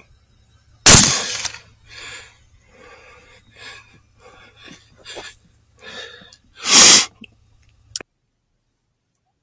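A single rifle shot about a second in, dying away over about half a second. It is followed by a string of fainter short sounds, a loud half-second burst of noise near seven seconds, and a sharp click near eight seconds.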